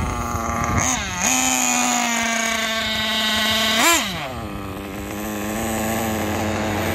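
Kyosho MP9 TKI4 nitro RC buggy's glow engine running at a high, buzzing pitch. The pitch dips briefly about a second in, then rises and falls sharply about four seconds in before settling lower. The engine is freshly bedded in and its carburettor tuning is still in progress.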